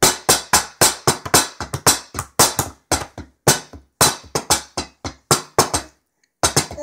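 Hands drumming on a wooden kitchen tabletop: a quick, uneven run of flat slaps, about four a second, that stops about six seconds in.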